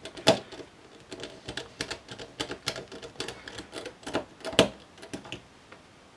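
Precision screwdriver with a Phillips 00 bit turning small screws into a laptop cooling fan's metal bracket: a run of small clicks and ticks, with two louder knocks, one just after it begins and one near the end.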